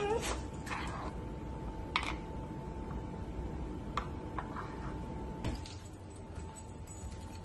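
Light clicks and taps of hard plastic from a Dog Brick treat puzzle toy as its sliding pieces and covers are handled and set in place, a few scattered knocks over a steady low hiss.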